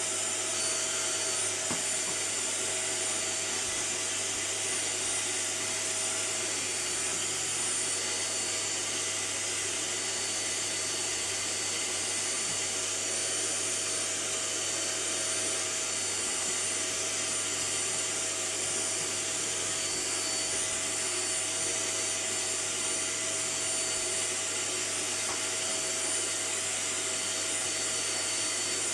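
Vacuum cleaner running steadily, a constant motor drone with a thin high whine.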